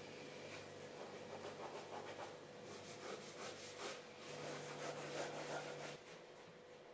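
Pen scratching on notebook paper in irregular strokes as it writes, busier in the second half and stopping about a second before the end, over a faint steady hum.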